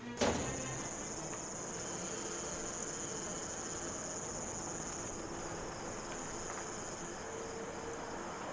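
A chorus of crickets chirping steadily in the night, giving a continuous high-pitched trill. A single sharp click comes just at the start.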